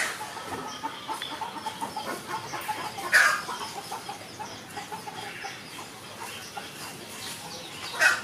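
Birds calling in the background: a steady run of short repeated calls, with two louder, sharper calls about three seconds in and near the end.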